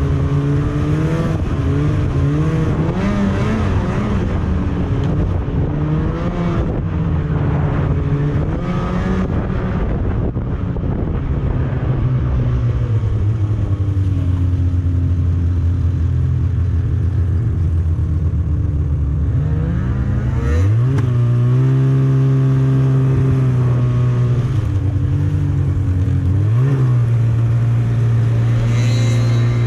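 Snowmobile engine running under way, its pitch wavering with the throttle; about two-thirds through it revs up sharply and holds a higher, steadier note, dipping briefly once before recovering near the end.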